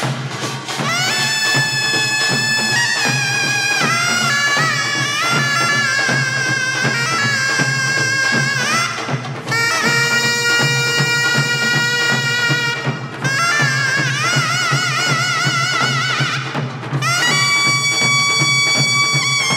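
Taepyeongso, the Korean double-reed shawm, playing a loud wavering melody of long held notes and sliding pitches. It breaks off briefly three times between phrases, with the pungmul percussion ensemble beneath it.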